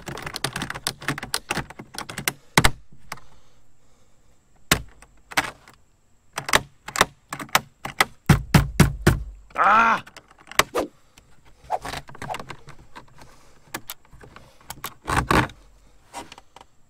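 A kayak backband ratchet buckle being worked by hand: irregular runs of plastic clicks and rattles as the strap is ratcheted and released. There is one brief pitched squeak just under ten seconds in.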